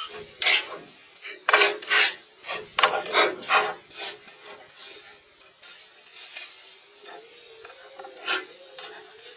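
Scraping and rubbing strokes on wood, irregular and in quick succession over the first few seconds, then fainter and sparser, with a single louder stroke near the end.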